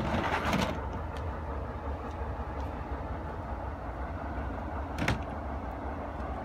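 Diesel locomotive engine giving a steady low rumble as it approaches. A brief rustling clatter comes in the first second, and a single sharp knock about five seconds in.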